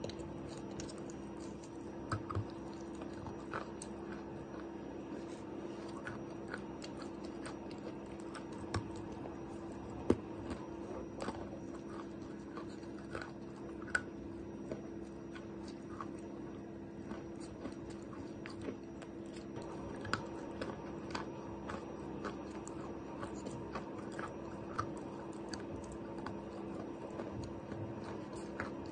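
Chalk being bitten and chewed, dry and wetted pieces mixed, with irregular crunches over a steady low hum.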